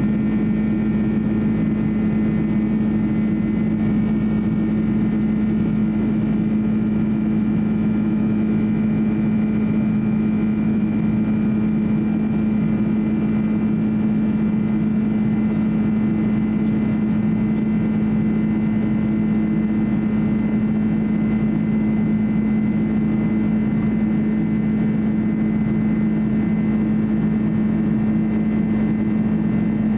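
Cabin noise inside a Boeing 767-300 in flight: the twin jet engines and airflow give a loud, steady drone with a low hum and a few fainter higher tones, unchanging throughout.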